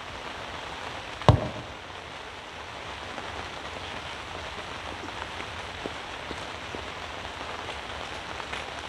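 Steady rain falling, with a single loud thump about a second in.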